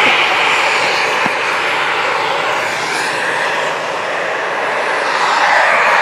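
Engine noise of an aircraft flying overhead: a steady, loud rushing drone that swells again near the end.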